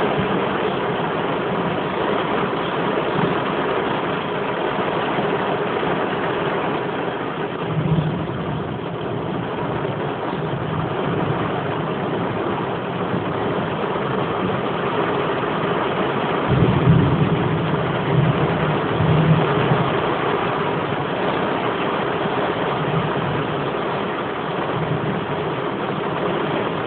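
Heavy rain falling steadily in a severe thunderstorm, with low thunder rumbling in about 8 seconds in and again, louder, from about 16 to 20 seconds in.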